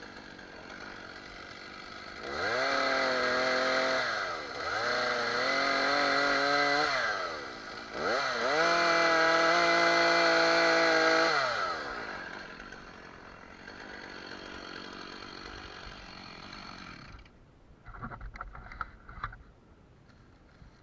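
Stihl two-stroke chainsaw idling and revved to full throttle three times, each burst a few seconds long, dropping back to idle between them. The engine is shut off a few seconds before the end, followed by a few short knocks.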